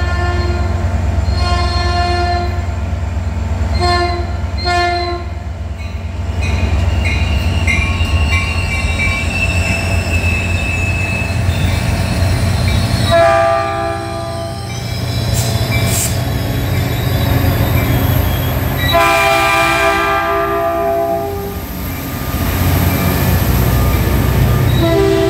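Caltrain diesel locomotive approaching and passing at close range, its engine a steady low rumble under repeated horn blasts: several short blasts in the first five seconds, then longer blasts about thirteen seconds in and again around twenty seconds. A thin, high-pitched squeal is heard between the blasts in the middle.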